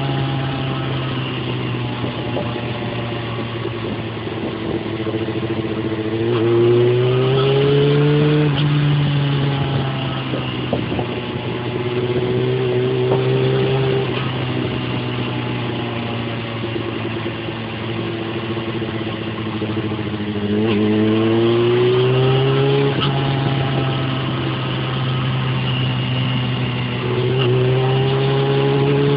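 Yamaha FZ6 S2's 600 cc inline-four engine through an Akrapovic exhaust, heard from the rider's seat while riding. The engine note rises under acceleration three times, about a quarter of the way in, about two-thirds in and near the end, and drops back as the throttle closes in between, over a steady rush of road and wind noise.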